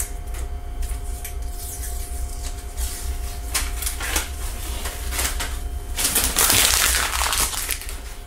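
Double-sided tape being handled on a wooden board: scattered crinkles and taps, then a louder tearing rip as tape is peeled about six seconds in. A steady low hum runs underneath.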